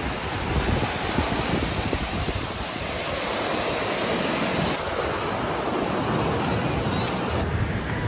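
Surf breaking and washing up on a sandy beach, a steady hiss of foaming water, with wind gusting on the microphone. The hiss drops off near the end.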